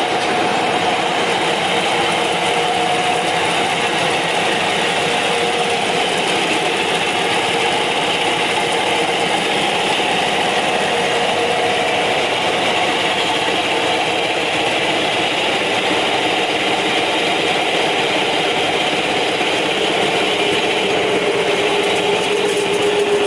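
Workshop machinery running steadily, a dense even mechanical noise with a held hum that sags slightly in pitch near the end.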